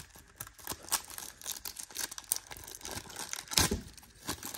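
Hands tearing open the plastic wrapper of a Collegiate Collection trading-card pack: a run of crinkles and rips, with a louder tear about three and a half seconds in.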